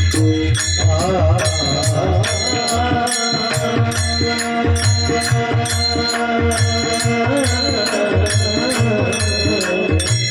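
Marathi devotional bhajan music: a sung melody that wavers and ornaments its notes over held tones, with a mridang drum and a steady beat of small hand cymbals.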